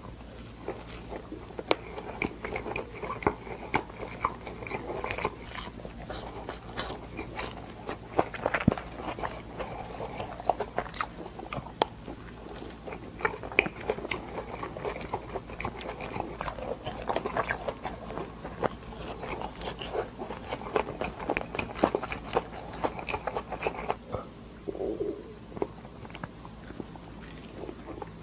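Close-miked eating of dumplings: bites into the dumpling skins and steady wet chewing, a dense run of sharp clicks and squelches, over a faint steady low hum.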